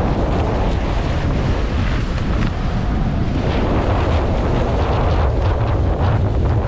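Heavy wind buffeting the microphone, mixed with water rushing and splashing along the hulls of a Nacra F18 catamaran sailing at speed. The sound is a steady, loud roar with frequent small splashes of spray through it.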